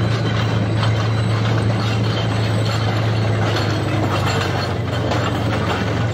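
Tank with mine-clearing rollers on the move: the engine runs with a steady low drone over a continuous metallic clatter of tracks and rollers.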